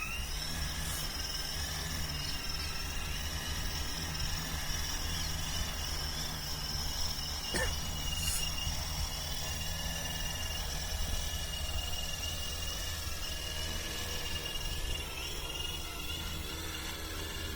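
A 15-litre agricultural spraying drone's motors and propellers whining in flight, a steady high hum that rises in pitch just at the start, over low wind rumble on the microphone.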